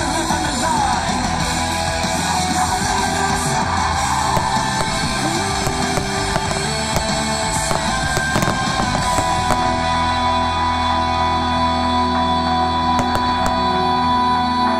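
Rock music with guitar, loud and steady, the soundtrack of a fireworks show. A few short cracks of bursting fireworks sound under it.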